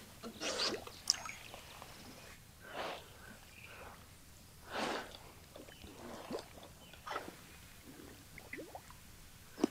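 A few faint, short splashes and rustles spaced out over several seconds: a smallmouth bass slipped back into the lake over the side of a boat near the start, then a fly rod cast and the line laid out on the water.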